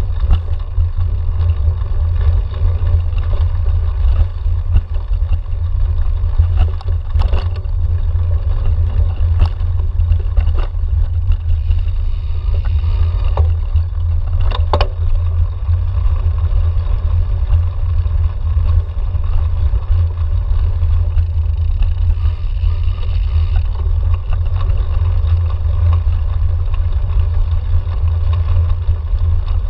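Loud, steady low rumble of a handlebar-mounted camera on a cyclocross bike riding over bumpy grass, from wind and frame vibration on the microphone. A few sharp clicks and rattles come through as the bike hits bumps.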